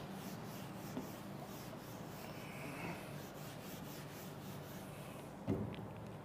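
Whiteboard eraser wiping marker drawings off a whiteboard: a faint, steady rubbing, with a brief louder thud near the end.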